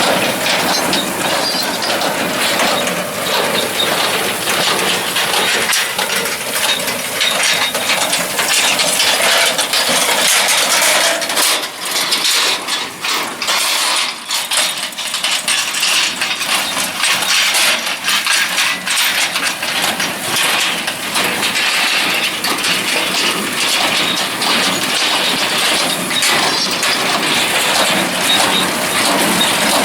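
Farm machinery running, a steady mechanical rattle with many small clicks and clanks.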